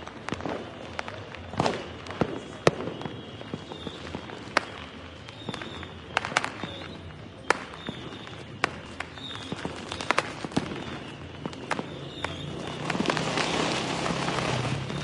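Fireworks going off: scattered sharp bangs and cracks every second or so over a steady background rumble. A denser crackling builds near the end.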